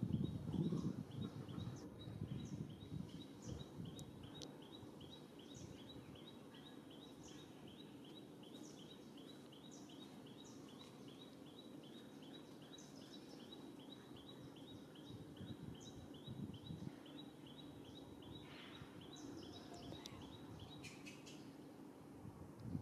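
Faint forest ambience: a high chirp repeating about four times a second throughout, with scattered short bird calls above it and low rustling that is strongest in the first couple of seconds.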